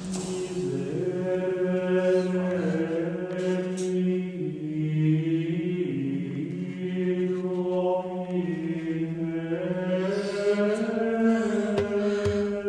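Chanting voices holding long notes over a steady low drone, the higher notes shifting slowly in pitch. Light percussive taps come in near the end.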